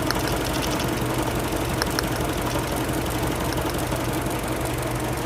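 2008 Mini Cooper's 1.6-litre four-cylinder engine idling steadily, with a few faint clicks. The engine has an intermittent cylinder 4 misfire that persists despite a new injector, spark plug and coil and good compression.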